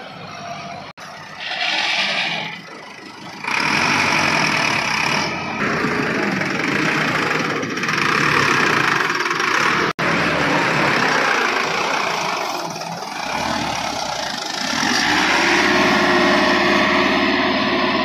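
Diesel farm tractor engine running hard under load as it reverses a loaded sand trolley through mud. The sound grows louder a few seconds in and breaks off abruptly for an instant twice.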